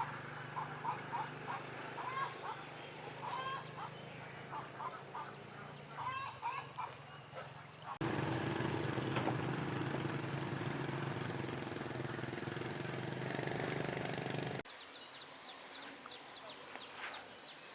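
Short animal calls repeated again and again for about eight seconds, then a sudden change to a motor running steadily for about six seconds, then a quieter outdoor background with a faint high steady whine.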